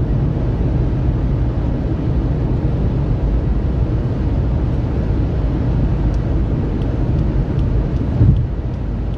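Steady cabin noise of a Fiat Palio cruising on the highway: a low rumble of tyres and engine, with a brief low thump near the end.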